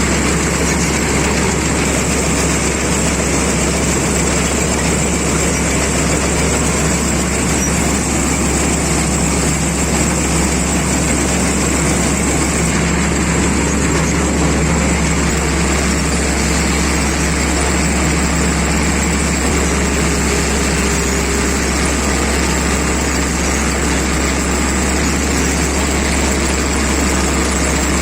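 Rice combine harvester running steadily, its engine and machinery making a constant loud drone with no change in speed.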